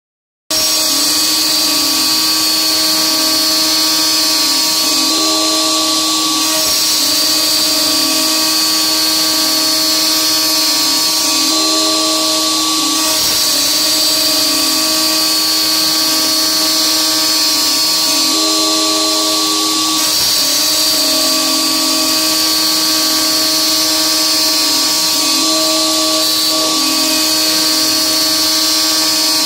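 DeWalt DWP-611 trim-router spindle on an X-Carve CNC, driving a 1/8-inch two-flute carbide endmill through dry roughing passes in 6061 aluminium. A steady high motor whine mixes with the hiss of cutting. The pitch dips briefly every second or two as the cutter loads.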